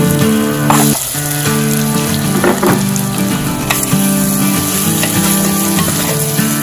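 Marinated chicken pieces sizzling in hot oil in a clay pot, with a metal spoon scraping and turning them a few times, under background music.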